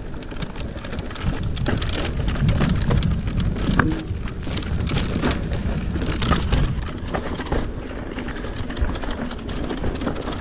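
Mountain bike rolling downhill over rock and gravel: tyres crunching and rattling over stones, with a dense patter of small clicks and clatters from the bike. Wind rumbles on the microphone.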